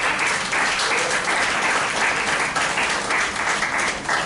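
An audience applauding: steady clapping of many hands.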